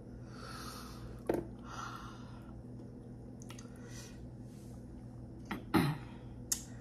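Close-miked eating mouth sounds between bites of saucy fried chicken. Two soft breathy exhales come in the first few seconds with a wet click between them, and a sharper wet lip smack comes near the end.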